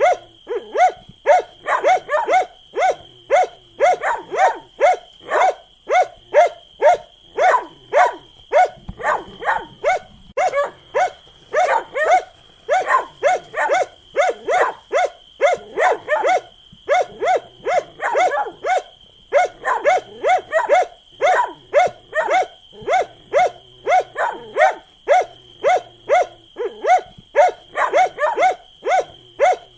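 Dog barking over and over in quick, regular barks, about two to three a second, with a short break about nine seconds in.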